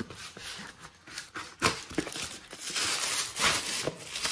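A small cardboard box being opened by hand, its flaps giving sharp clicks and scrapes, then the crinkling rustle of a plastic bag being pulled out of it.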